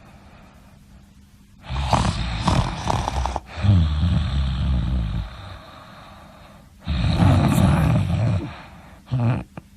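Loud snoring: a long snore about two seconds in that drops into a low rumble, another long snore about seven seconds in, and a short snort near the end.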